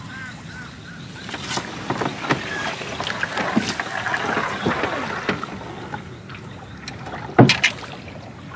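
Water splashing and dripping with a light rattle as a bamboo fish trap is lifted and handled out of flooded paddy water, then two loud knocks near the end.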